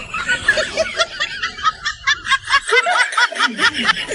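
A rapid, high-pitched snickering laugh: a quick string of short 'he-he-he' pulses, about five a second.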